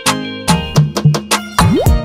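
Instrumental background music with a steady beat and a rising pitch sweep near the end.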